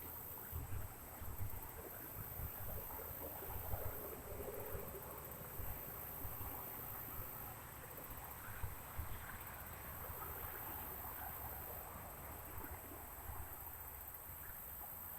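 Steady high-pitched insect chorus of crickets, swelling slightly, with an uneven low rumble on the microphone beneath it.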